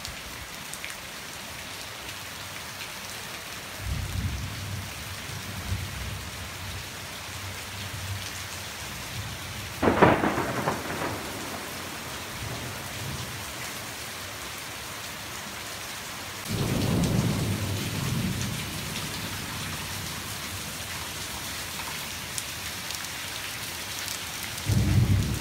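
Heavy rain pouring steadily on a paved driveway in a thunderstorm. Thunder rumbles about four seconds in, a sharp, loud crack of thunder comes about ten seconds in, and more low rumbles follow a few seconds later and again near the end.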